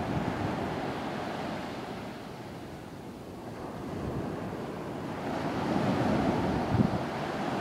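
Beach surf washing ashore, swelling and easing, with wind on the microphone and a brief low thump near the end.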